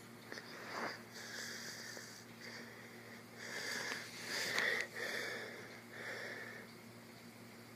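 Several hissy breaths close to the microphone, with a few faint clicks.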